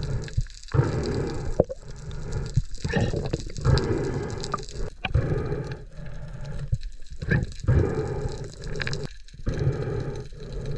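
Underwater water-movement and handling noise picked up by an action camera: irregular swirling surges with a few sharp clicks, separated by short gaps.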